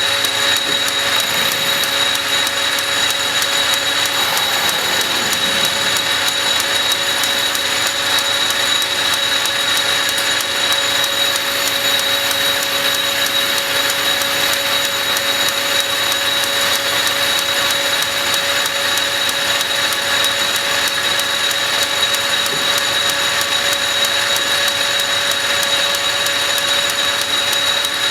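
South Bend metal lathe running at a steady speed: a constant motor-and-drive hum with a steady high whine above it.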